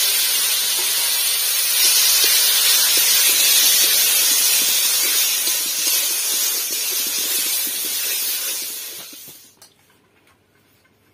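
Ground green chilli paste sizzling in hot oil in a metal kadhai: a loud, steady hiss with faint crackles as it is stirred with a metal spatula. The hiss dies away about nine seconds in.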